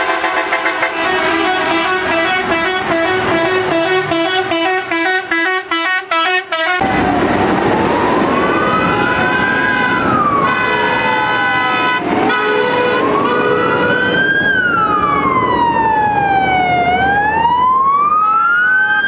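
Vehicle horns sounding in a rapid, pulsing pattern of alternating tones for about the first seven seconds. Then an emergency-vehicle siren wails, rising and falling slowly, about once every five seconds.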